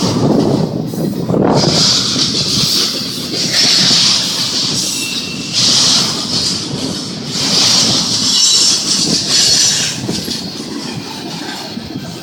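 Union Pacific intermodal freight train rolling past: a low rumble of the cars with high-pitched wheel noise on the rails that swells and fades about every two seconds.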